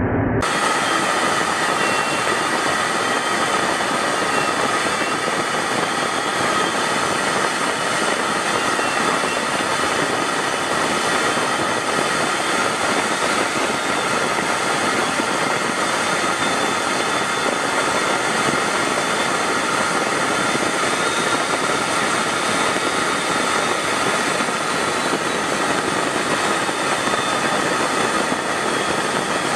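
Steady jet aircraft noise in flight: an even rushing hiss with faint steady whining tones. It starts abruptly about half a second in.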